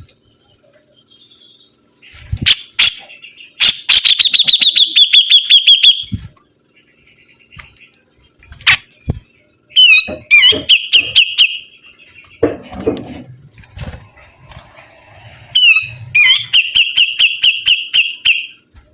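Cucak jenggot (grey-cheeked bulbul) singing in full voice: three loud phrases of rapid, evenly repeated high notes, each about two seconds long, with shorter calls and a few sharp clicks between them.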